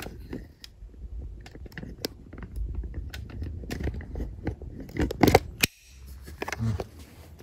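Irregular clicks and crunches of wiring, connectors and tools being handled, loudest in a cluster about five seconds in that stops abruptly.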